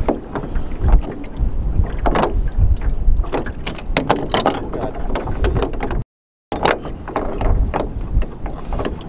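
Oars knocking and creaking in their oarlocks as a wooden Dover Dory dinghy is rowed, over strong wind buffeting the microphone. The sound cuts out completely for a moment about six seconds in.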